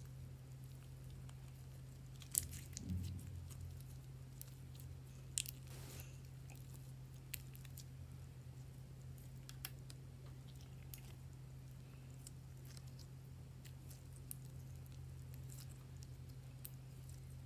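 Faint scattered sticky clicks and squishes of slime being handled, with a small cluster of them between about two and three and a half seconds in, over a steady low hum.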